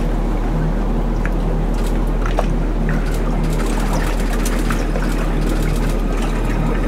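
Steady ocean ambience: a constant low rumble and wash of water and wind, with an uneven low drone underneath.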